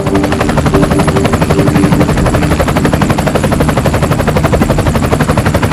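Small electric motor of a homemade matchbox toy helicopter running fast, its long rotor blades beating the air in a loud, rapid, steady chop over a low motor hum.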